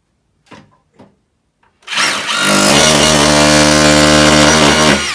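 Two light taps, then an electric drill starts about two seconds in, winds up to speed and runs steadily, drilling into the wall, before it begins to slow right at the end.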